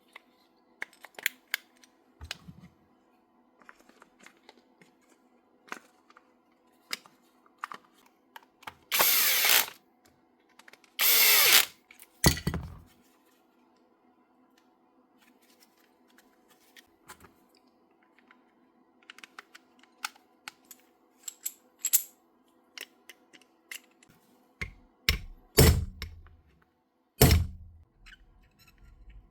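A cordless power tool runs in two short bursts of about a second each, among scattered clicks and knocks of tools and parts being handled.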